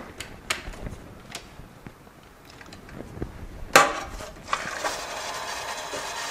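A few handling knocks and clatters, one of them loud just before the four-second mark, then water from a garden hose starts running steadily onto a mesh bag of pea seed in a stainless steel sink for the first rinse.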